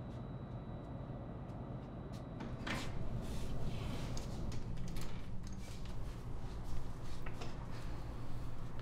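A front door with an iron security grille being opened, heard as latch and handle clicks and knocks starting about two and a half seconds in, over a low steady hum.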